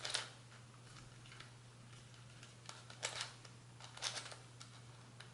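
Plastic twisty puzzle being turned by hand: faint clicking of its pieces sliding and snapping into place, in short bursts at the start, about three seconds in and again about a second later.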